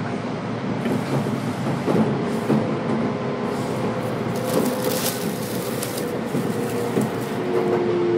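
Kintetsu electric train running, heard from inside the car: a steady rumble with scattered wheel clicks over rail joints and a brief hiss midway. A motor whine comes in about halfway and falls in pitch near the end as the train slows.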